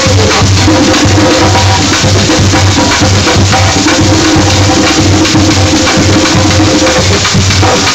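Live gwo ka music: ka hand drums keep a steady pulse of about two low beats a second, with quicker sharp hand strikes over it and some held tones above.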